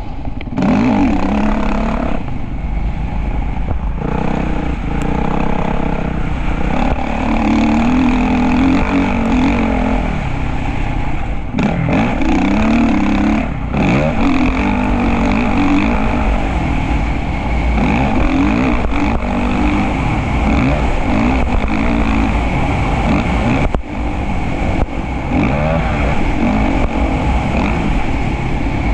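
Motocross bike engine being ridden hard, its pitch repeatedly climbing and falling as the throttle opens and shuts, with a few brief sharp drops.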